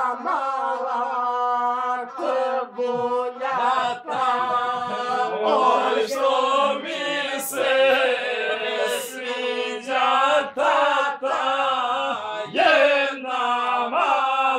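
A man singing Serbian/Montenegrin epic verse to the gusle, the single-string bowed folk fiddle. He sings in short chanted phrases over a steady held note, with brief breaks between phrases.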